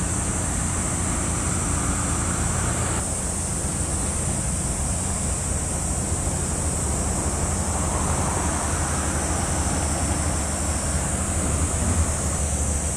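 Outdoor waterside ambience: a steady, low engine drone from afar under wind and water wash, with a steady high hiss. The background changes abruptly at a cut about three seconds in.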